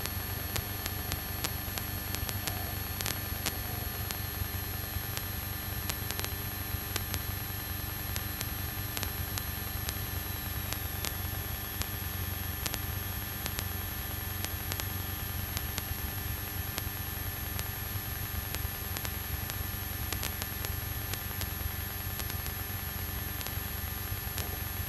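Steady static hiss and electrical hum from a light aircraft's intercom and radio audio feed, with the low drone of the aircraft underneath and scattered faint clicks. A faint high whine drops slowly in pitch over the first half.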